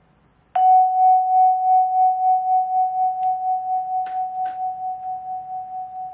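A vibraphone bar struck once about half a second in, ringing on as one long note that slowly fades. Its loudness pulses about three times a second from the instrument's rotating vibrato fans. Two light clicks come about four seconds in.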